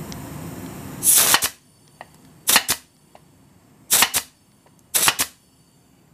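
Arrow PT23G 23-gauge pneumatic pin nailer firing four times into a pine strip, each shot a sharp double crack, spaced about one to one and a half seconds apart.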